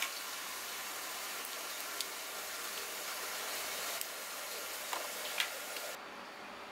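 Cooked mantis shrimp being peeled by hand: a few small clicks and cracks of shell and legs breaking off, the loudest near the end, over a steady hiss that thins out just before the end.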